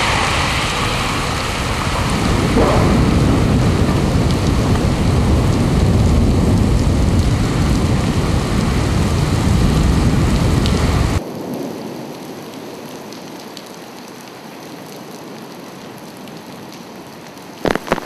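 Heavy rain pouring, with a loud low rumble under it that cuts off suddenly about eleven seconds in, leaving a steady, quieter hiss of rain.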